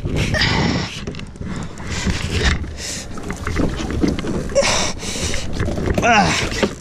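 Sea water splashing around a kayak and wind on the microphone, with scattered knocks and clatter on the deck as a freshly landed cobia is handled. A short pitched sound slides downward about six seconds in.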